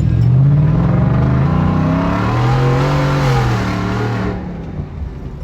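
Ford F-150's 5.0 V8 through a custom cat-back exhaust, accelerating: the exhaust note climbs in pitch over about two and a half seconds, levels off, then drops back as the throttle is released about four seconds in.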